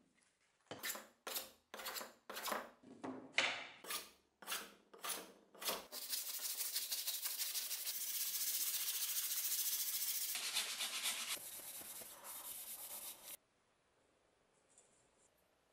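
Sandpaper rubbed by hand over a birch axe handle. About nine separate scraping strokes come first, then fast continuous rubbing for about seven seconds that stops suddenly.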